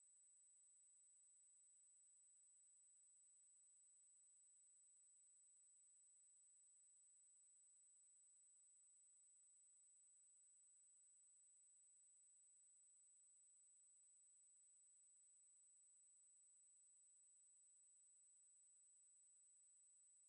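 A steady, unbroken 8085 Hz sine-wave test tone: a single high-pitched pure tone at constant loudness.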